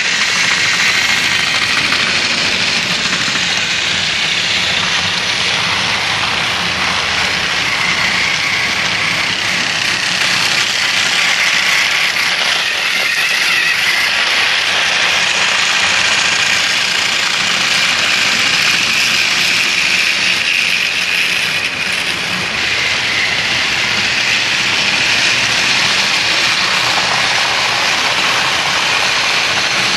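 Battery-powered TOMY Trackmaster toy trains running around plastic track: a steady whir of small geared motors and wheels rolling on the track.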